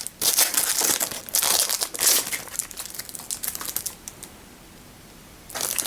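Plastic packaging crinkling and rustling as it is handled, in quick irregular bursts. It stops for about a second and a half, then starts again near the end.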